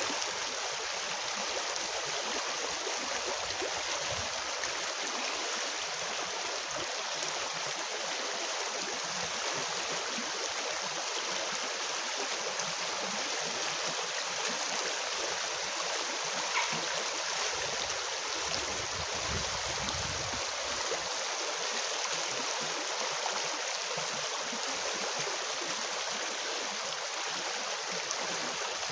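Shallow river rushing over a stony riffle: a steady, unbroken sound of running and splashing water.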